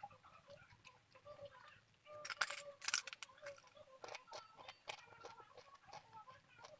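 Close-miked eating sounds: wet chewing and lip-smacking clicks, with a brief louder crackle about two and a half seconds in.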